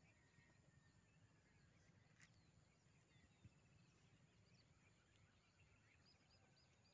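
Near silence: faint outdoor ambience with a few faint high bird chirps, four quick ones near the end.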